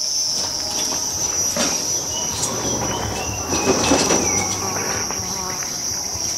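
Steady high-pitched chorus of crickets. A low rumble swells briefly about three and a half to four seconds in, with a few faint short chirps around it.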